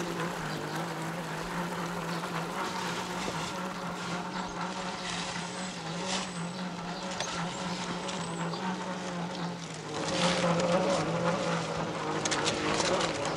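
Traxxas TRX-4 Bronco RC crawler's motor and drivetrain whining steadily as it drives, the pitch wavering a little with the throttle. About ten seconds in, a louder rough crunching with scattered clicks joins, like tyres working over rough ground.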